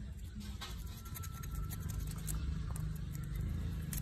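A sharpened wooden stick scratching and scraping grime out from between the cooling fins of a small motorcycle engine's cylinder head, in short irregular strokes over a steady low rumble.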